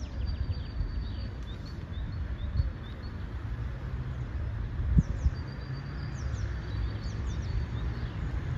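Small songbirds chirping and whistling, repeated short notes, over a steady low rumble of wind and distant traffic, with a single sharp thump about five seconds in.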